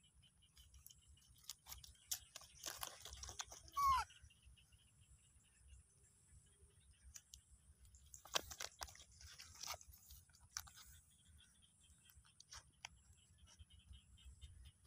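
Faint crackling and rustling of a woven plastic sack and leaves as a baby macaque moves about on it, with a short falling squeak about four seconds in.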